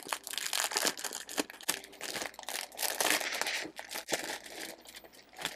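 Crinkle-cut paper shred filler and a plastic packaging sleeve rustling and crinkling under hands, in quick irregular crackles that thin out near the end.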